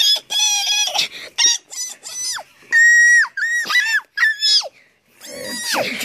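A child's voice making a string of very high-pitched squeals, about ten short cries, several held on one note and then dropping sharply at the end.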